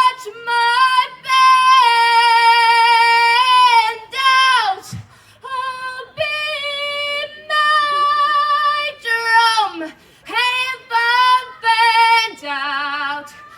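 A woman's solo voice singing a cappella, with long sustained notes, some held with vibrato, between short phrase breaks.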